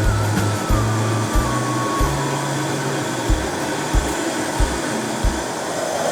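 Steady roaring noise of the fire heating a keg pot of water to a rolling boil. Background music with a bass beat plays over it and fades out about five seconds in.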